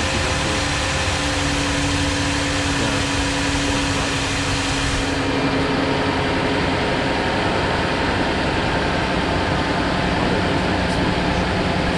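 The 3.6-litre Pentastar V6 of a 2013 Jeep Grand Cherokee idling steadily with a newly fitted serpentine belt running over its pulleys, smooth and quiet, with no belt noise. A steady tone sits over the running engine for about the first half.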